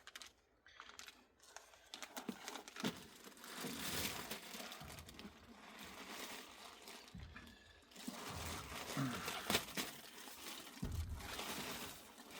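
Plastic packaging bag crinkling and rustling as it is handled, with irregular small clicks and knocks; quieter for the first couple of seconds.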